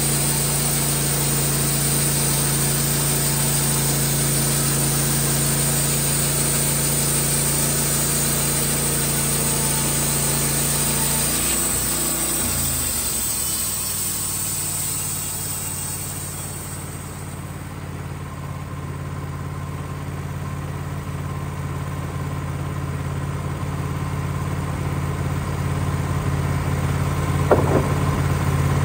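Wood-Mizer LT15 bandsaw mill's engine running under load as its band blade cuts through a cherry log, a steady hiss of sawing over the engine note. About twelve seconds in the blade leaves the cut: the engine note shifts and the cutting hiss dies away, leaving the engine running steadily, with a short knock near the end.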